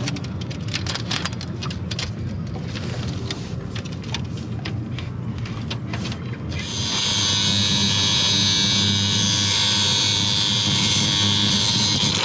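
Small clicks and scrapes of steel rigging-wire strands being unlaid by hand. About six and a half seconds in, an angle grinder starts cutting through the wire strands with a loud, steady hiss.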